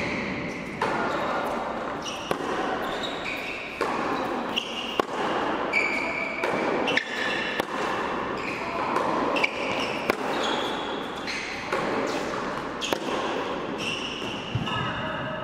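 Tennis rally on an indoor hard court: rackets striking the ball and the ball bouncing, sharp irregular hits echoing in the hall.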